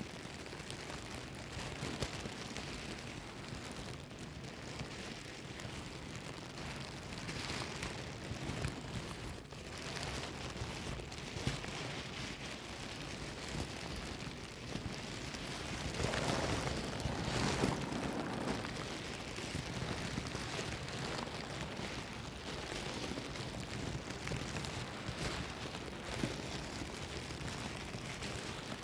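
Plastic bag being rustled and crumpled: a continuous crinkling crackle, louder for a couple of seconds about two thirds of the way through.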